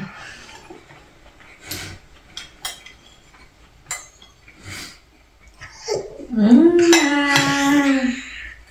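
Metal spoons clinking and scraping against ceramic bowls, a handful of light scattered taps. About six seconds in, a long drawn-out voice rises and then holds for about two seconds, louder than the clinks.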